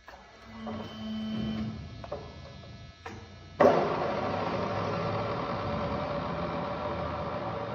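MAS VR8A radial arm drill being worked at its controls: a short hum and a couple of sharp clicks, then about three and a half seconds in the machine starts with a sudden jolt and keeps running steadily.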